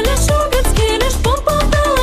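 Background music with a steady, fast kick-drum beat and a sliding lead melody.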